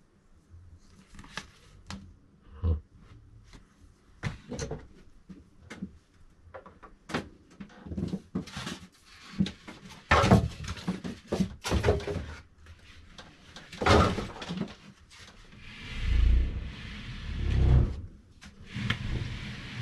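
Packaging and printer parts being handled during unboxing: a run of knocks, clicks and rustling, with two heavier low thumps near the end.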